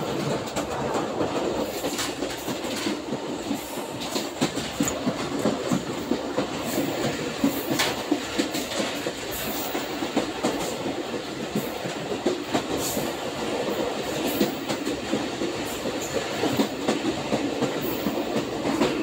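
Sagardari Express passenger train running along the track at about 60–70 km/h, heard from aboard: a steady rumble with frequent sharp clicks of the wheels over rail joints.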